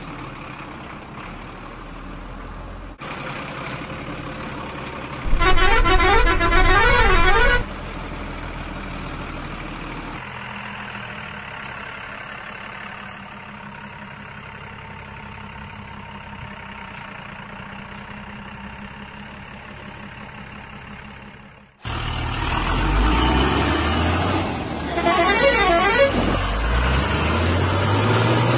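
Truck engine sound effects, laid over toy trucks: an engine running and idling that changes abruptly a few times. A loud horn sounds for about two seconds about five seconds in. Near the end the engine revs up with another horn blast.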